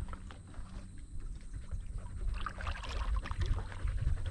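Paddle strokes in the water beside a canoe: dipping and splashing, with a few small knocks.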